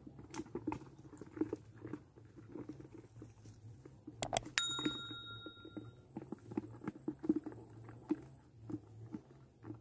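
A subscribe-button sound effect about four seconds in: a sharp mouse-like click followed by a short bright ringing chime. Under it, soft irregular taps and rustles with a steady high thin tone and a low hum.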